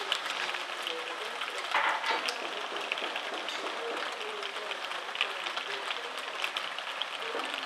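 Steady rain falling on trees and a garden: an even hiss dotted with many sharp drop clicks, with a brief louder rush about two seconds in.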